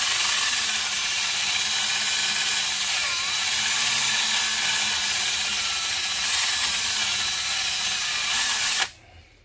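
Cordless drill spinning a small wire wheel brush against the rusty brake caliper mounting slides, a steady scratchy hiss of wire bristles on metal that cuts off abruptly near the end. The wire wheel is scrubbing rust off the slides so the brake pads can ride freely.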